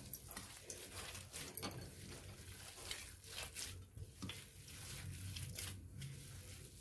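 Hands mixing and squeezing a moist grated potato and paneer mixture on a steel plate: faint, irregular squishing and rubbing.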